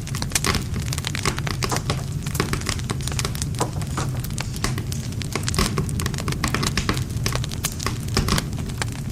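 Wood fire crackling steadily: a dense, irregular run of sharp pops and snaps from burning wood over a low, steady rumble of flame.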